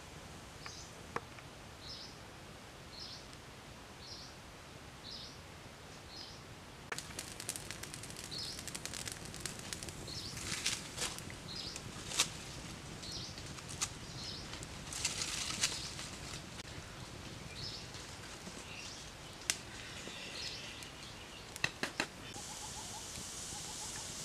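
A wood fire crackling with scattered sharp pops while a bird repeats a short high chirp about every three-quarters of a second. A steady hiss sets in near the end.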